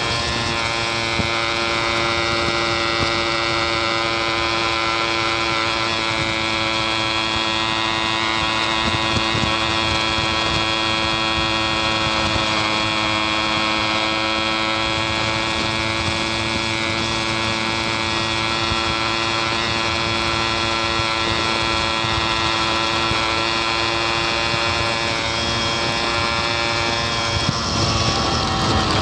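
Yamaha RX King's two-stroke single-cylinder engine running at a steady speed: an even, constant buzz that wanders a little in pitch and grows louder near the end.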